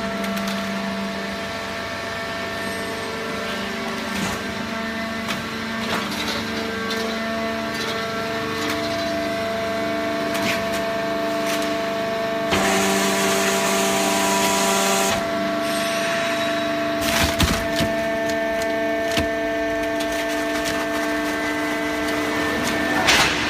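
Hydraulic cardboard baler running: a steady machine hum and whine whose pitch shifts in steps, with a louder hissing stretch about halfway through and sharp cracks and knocks of material being pressed near the end.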